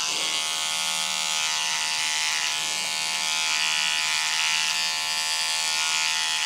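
Cordless electric beard trimmer buzzing steadily as it is run through a beard on the cheek.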